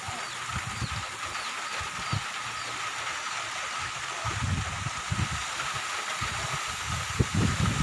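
Steady hiss of rain and wind, with low rumbling gusts of wind buffeting the microphone from about four seconds in and again near the end. A steady high-pitched tone runs under it, and a few faint repeated chirps sound in the first couple of seconds.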